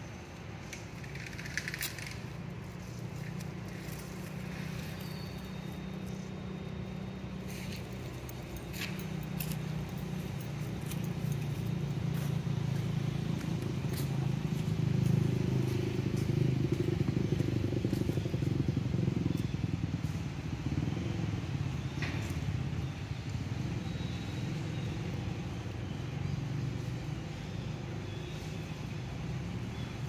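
A motor vehicle's engine runs as a low drone in the background. It grows to its loudest about halfway through and then slowly fades. Scattered light clicks sound over it.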